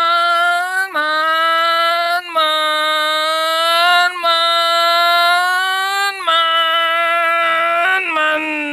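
A single voice holding a long, drawn-out 'maaa', its pitch creeping slowly upward on each held stretch and broken by short catches every second or two: the stretched-out first syllable of 'Manchester'. Near the end the held note turns rougher and drops a little.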